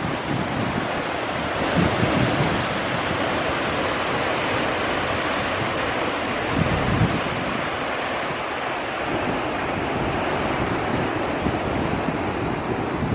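Pacific Ocean surf washing steadily, mixed with wind buffeting the microphone in low gusts, strongest about two seconds in and again around seven seconds.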